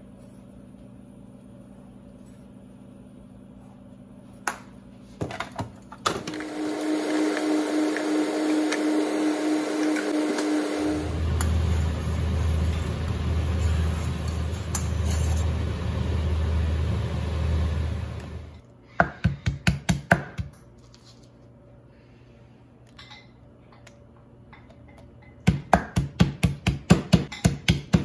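A loud machine whir runs for about twelve seconds, turning to a deeper, pulsing rumble halfway through, and then stops abruptly. After it come quick runs of pounding from a wooden pestle in a clay mortar, about four strikes a second: a short run at about twenty seconds, and a steadier one from about twenty-five seconds.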